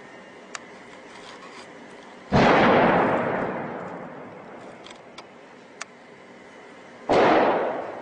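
Heavy weapons fire: two loud blasts, one about two seconds in and one near the end, each echoing away over about two seconds. A few faint sharp cracks sound between them.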